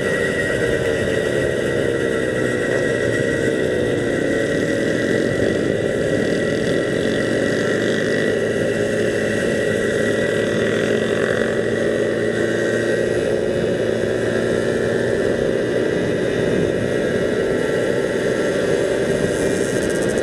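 Motorcycle engine running as the bike rides along at a fairly steady speed, its pitch dipping and rising briefly a few seconds in, with a steady rush of wind and road noise on the bike-mounted camera's microphone.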